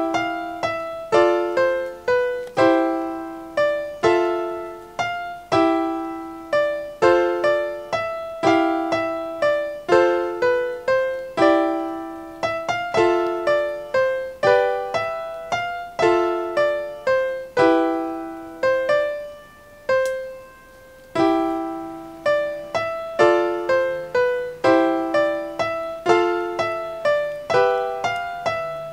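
Background piano music: a repeating figure of struck notes, each fading out, with a brief pause about two-thirds of the way through, after which a low held note joins in.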